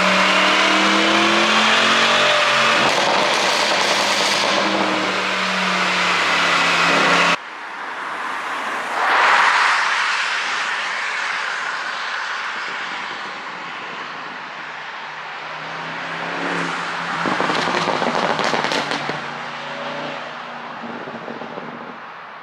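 Porsche Panamera Turbo S E-Hybrid's twin-turbo V8 exhaust, flaps open on a pops-and-bangs tune, revving with the pitch rising and falling. It cuts off abruptly about seven seconds in, surges loudly soon after, and near the end gives a run of sharp crackles and pops.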